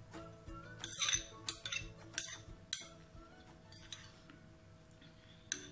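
Metal spoon clinking and scraping against a ceramic bowl, a quick run of strikes about one to three seconds in and another near the end, over faint background music.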